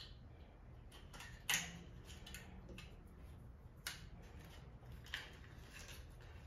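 Faint, scattered clicks and light knocks over a low steady hum, the loudest click about one and a half seconds in.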